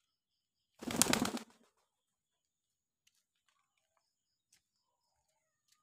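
A pigeon taking off, its wings clattering in one short burst about a second in.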